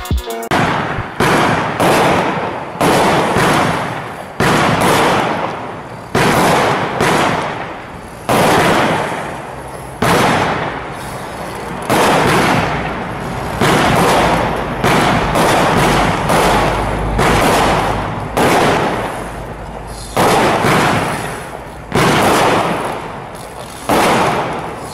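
Schattebout, a 16-shot 20 mm firework cake, firing its shots one after another, roughly one a second. Each shot is a sharp bang followed by a fading crackle.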